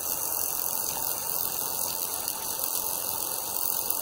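Steady hiss with a static-like rush from a homemade argon plasma ion drive running, its high-voltage arc discharge spinning inside the copper tube.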